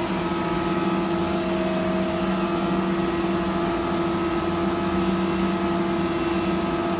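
Steady hum of shop machinery running, holding several fixed pitches without change.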